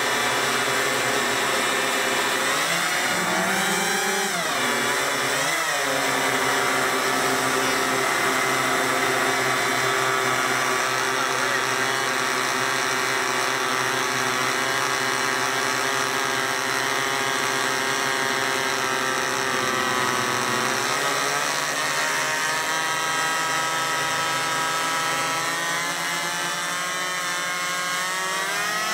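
Several small model-aircraft engines running together on a large radio-controlled model of the Spruce Goose flying boat, a steady high buzz. Their pitch dips and rises a few times as the throttle changes.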